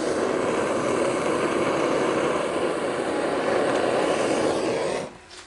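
Blowtorch flame burning steadily with a rushing noise while heating a joint for soldering, shut off about five seconds in.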